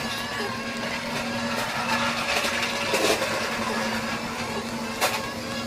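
Electric drive motor of a remote-control wheelbarrow running, a steady hum with a wavering whine that swells about three seconds in. A sharp knock comes near the end.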